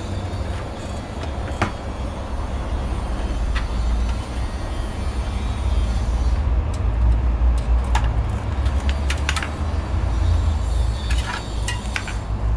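Scattered plastic clicks and knocks of a PC power-supply cable being routed and pushed into the motherboard's power connector, over a steady low rumble. The clicks come more often in the second half.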